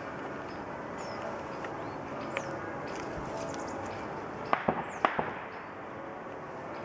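Dry sticks snapping underfoot on a forest floor strewn with dead branches: a quick run of four or five sharp cracks about four and a half seconds in, over a steady rustle of steps. Small birds chirp high and brief now and then.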